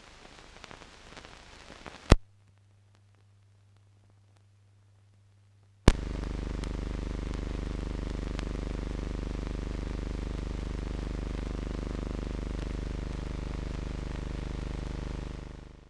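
Steady electrical mains hum with a buzz of evenly spaced overtones, switched in by a sharp click about six seconds in and fading out near the end. Before it come light crackle, another sharp click about two seconds in, and a fainter low hum: noise from the playback chain of a silent film, not sound from the scene.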